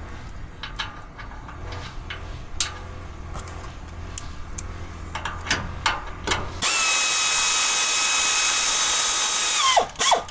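Power drill/driver running a bumper bolt for about three seconds, a steady whine that drops in pitch as it stops. Before it come scattered clicks and clinks of bolts and washers being handled.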